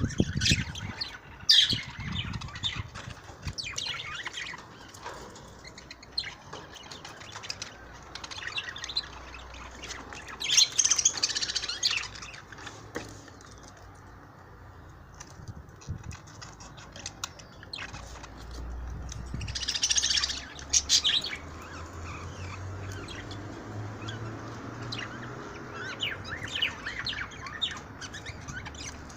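Budgerigars chirping in bursts, with short quieter stretches between.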